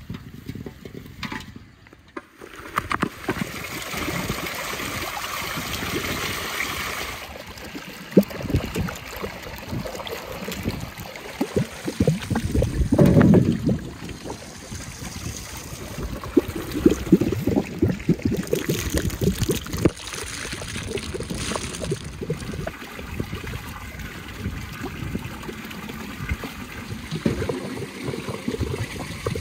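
Water splashing and sloshing in a broad metal tray as strawberries are washed by hand, over a steady trickle of water.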